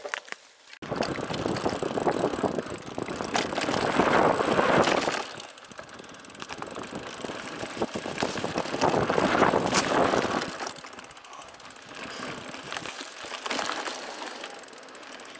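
Giant Talon hardtail mountain bike ridden fast down a dirt singletrack: knobby tyres rolling over dirt and the bike rattling over bumps, a dense rushing noise full of small clicks. It starts suddenly just under a second in and swells louder twice, about four and nine seconds in.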